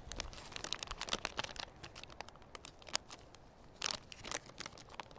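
Footsteps crunching on dry ground, an irregular run of crackling clicks coming in clusters, with the loudest crunch about four seconds in.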